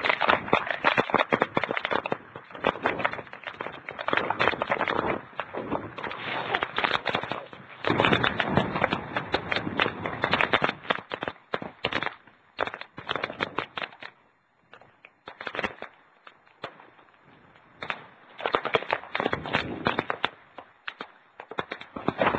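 Typhoon wind and rain lashing a phone's microphone: dense crackling and pelting in gusts a few seconds long, easing to a lull past the middle, then surging again near the end.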